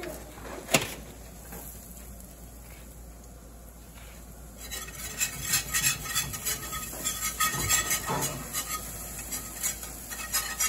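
Wire whisk stirring and scraping a flour roux in a cast-iron skillet, its wires clicking against the pan in quick strokes from a little under five seconds in. A single sharp knock about a second in.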